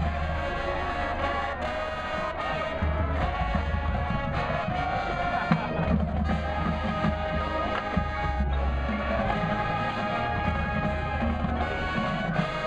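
High school marching band playing a brass-led passage, with trumpets and trombones carrying the music and bass drums underneath.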